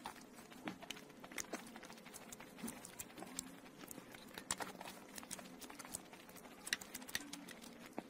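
Faint eating sounds of a man spooning food from a bowl: small irregular clicks and mouth smacks, with a faint steady hum underneath.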